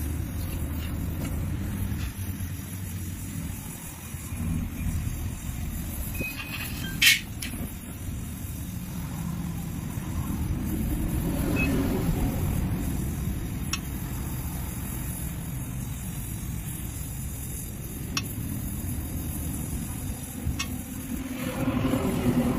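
Gas welding torch flame running steadily with a low rumbling hiss while it melts a crack in an aluminium alloy wheel rim; a single sharp click about seven seconds in.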